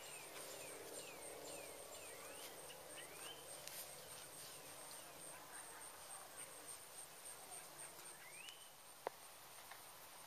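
Faint outdoor ambience: a steady high-pitched insect trill, with short rising chirps repeated in the first few seconds and again near the end, and one sharp click about nine seconds in.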